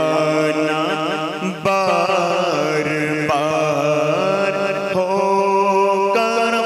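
A man's solo voice chanting a naat, the Urdu devotional poem, in long, wavering melismatic phrases with no clear words, over a steady low drone.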